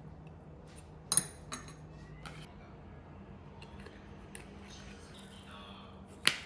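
Scattered clinks and knocks of dishes and cutlery being handled: about half a dozen separate sharp strikes, the loudest about a second in and again near the end, over a low steady hum.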